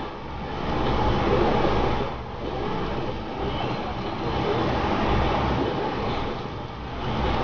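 Oil sizzling around hotteok frying on a flat griddle, over a steady low background rumble.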